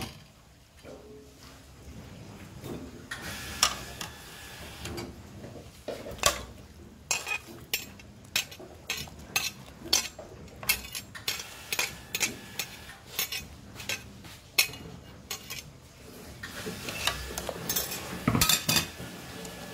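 Metal ladle stirring soup in a metal cooking pot, clinking and knocking against the pot's side and rim. Quiet for the first few seconds, then a long run of quick clinks through the middle and a few more near the end.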